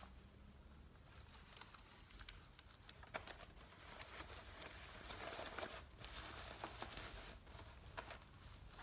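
Faint rustling and crinkling of a fabric drawstring makeup bag being gathered and folded by hand, with scattered light clicks; the rustling is densest a little past the middle.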